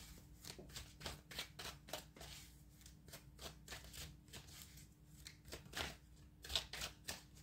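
A deck of oracle or tarot cards being shuffled by hand, heard as soft, quick card flicks. They come in a rapid run at first, thin out, and pick up again with a few sharper ones near the end.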